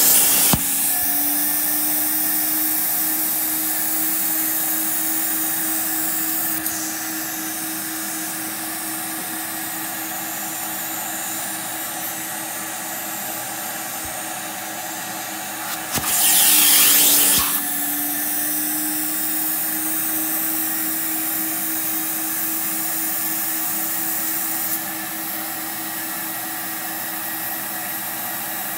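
Portable carpet-cleaning extractor's vacuum motor running steadily with a steady hum, its clear upholstery tool sucking dirty water out of a couch cushion. A loud hissing rush lasting about a second and a half comes around the middle.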